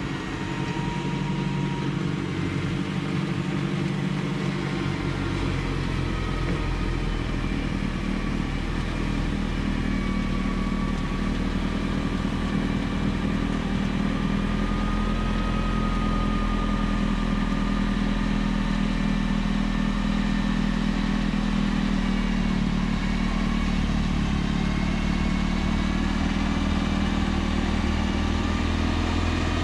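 John Deere 4052R compact tractor's diesel engine running steadily under load, driving a front-mounted Pronovost PXPL-80 snowblower. A faint whine drifts slightly in pitch, and the low rumble grows fuller about five seconds in.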